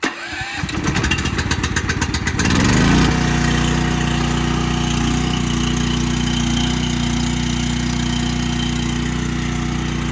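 Gasoline engine of a Miller Blue Star 185 engine-driven welder cranking for about two and a half seconds, then catching and settling into a steady run.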